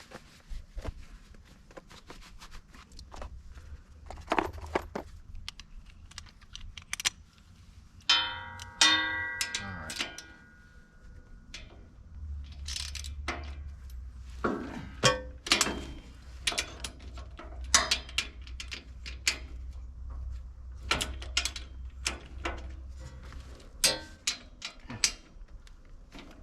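Socket wrench and steel hitch parts clinking and knocking as bolts are worked loose, with one ringing metal clang about eight seconds in. A low steady hum runs under the second half.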